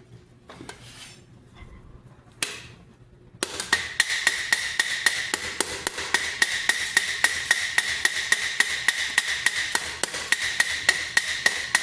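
A hammer striking rivets on a steel great helm, about four even blows a second with the helmet ringing between them, starting suddenly a little over three seconds in after a few faint clicks.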